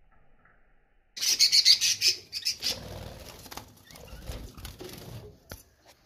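White Java sparrows fluttering in a wire cage. A sudden burst of rapid wingbeats comes about a second in, followed by softer flapping and scuffling, with a sharp click near the end.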